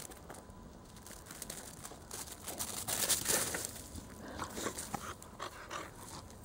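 A chow chow puppy rolling and wriggling on its back in snow: scuffing and rustling of its body against the snow, loudest about three seconds in, with short breathy sounds from the puppy in the second half.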